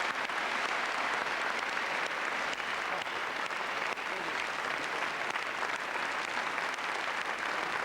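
Audience applauding steadily: a dense, even patter of many hands clapping at once.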